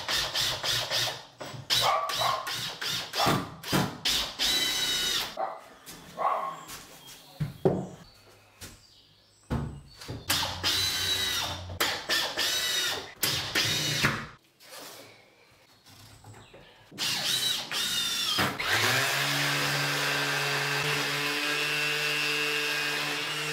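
Cordless drill driving screws into a wooden frame in many short whirring bursts. Later a Makita 18V cordless random orbital sander starts and runs steadily against the wood.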